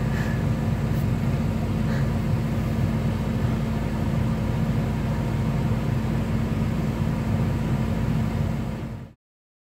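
Caterpillar 349F excavator's C13 six-cylinder diesel engine running steadily with a constant low hum as the machine lifts and swings a pulled stump. It fades out near the end.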